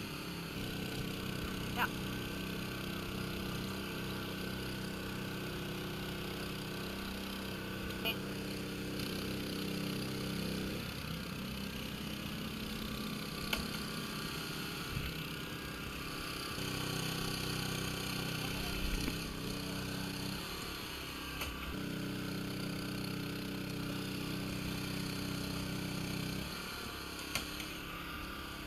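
Steady motor hum of electrofishing equipment, cutting out and coming back in several times. There are a few short knocks and splashes in the water.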